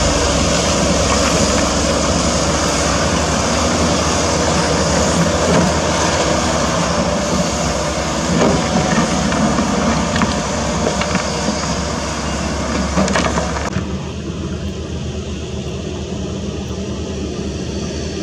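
Loaded Toyota light dump trucks driving over a rutted dirt road: steady diesel engine noise with a few sharp knocks. About fourteen seconds in, the sound changes abruptly to a quieter, duller engine sound as the picture cuts to another truck.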